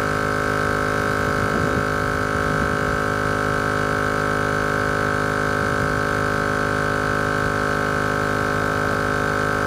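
AstroAI 12V DC portable air compressor running steadily with a constant buzzing hum as it inflates a truck tire toward its preset 36 PSI, just before its automatic shut-off.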